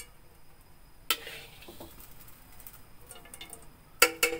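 Metal spatula striking a metal wok: one clink about a second in, then two loud, ringing clanks near the end.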